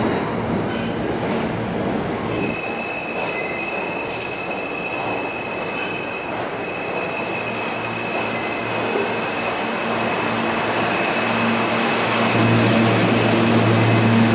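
R160 subway train pulling slowly into the station, its wheels giving a steady high squeal over the rumble of the cars. A low hum grows louder near the end as it slows.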